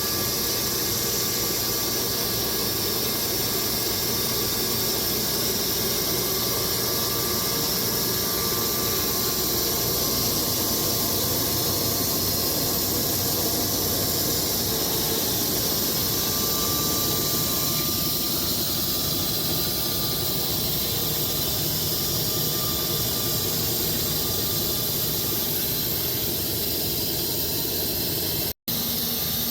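Electric Wood-Mizer LX250 bandsaw mill's blade running steadily through hardwood logs, a loud, even hiss with a faint squeal. The sound drops out for an instant near the end.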